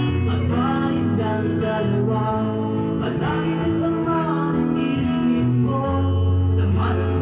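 A song with acoustic guitar and singing, with a steady bass line under the voice.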